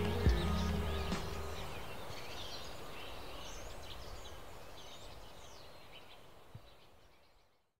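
Birds chirping over an outdoor ambience that fades gradually away to silence, with the tail of background music dying out in the first second or so.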